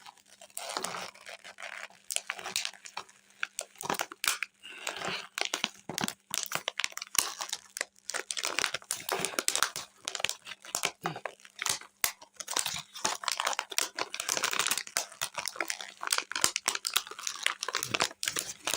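A thin plastic water bottle crinkling and tearing as it is peeled open around set cornstarch chunks, a dense run of irregular crackles and sharp clicks.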